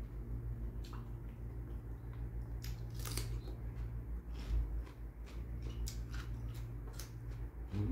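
Close-up eating sounds: chewing and biting into red grapes, an irregular scatter of sharp crisp clicks, over a steady low hum.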